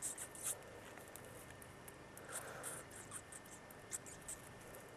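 Faint rustling: scattered short crackles and light ticks, with a small cluster right at the start and another around two and a half seconds in.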